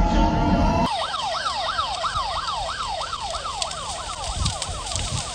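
Heavy-bass music stops about a second in and is followed by a siren sweeping rapidly up and down, about three times a second, with faint crackles over it.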